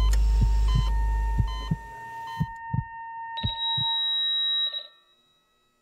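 Sound-designed heartbeat, paired thumps over a deep drone, with hospital heart-monitor beeps. The beeps turn into one steady flatline tone and the heartbeat slows and stops, marking a patient dying. Everything fades to silence near the end.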